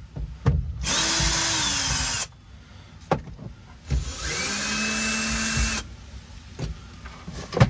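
Cordless drill-driver backing out screws from a plastic trim panel: two runs of the motor, the first falling slightly in pitch as it slows, the second rising and then holding steady. Clicks and knocks from handling the tool and panel come between the runs and near the end.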